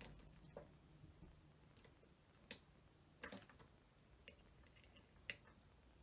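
Faint, irregular clicks and taps of small tools and wires being handled as a wire is pushed through a rubber grommet, about six in all, the sharpest about two and a half seconds in.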